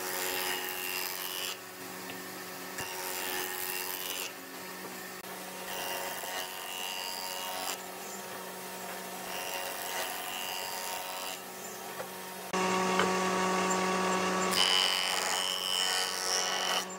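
Wood lathe running with a steady motor hum while a turning tool cuts and scrapes a spinning wooden blank. It comes in short spliced segments that change abruptly every second or two, loudest about three-quarters of the way through.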